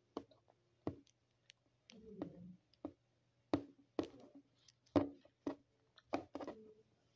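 Plastic doll tapped and knocked against a tabletop as it is moved about by hand: irregular knocks, about eight spread over several seconds.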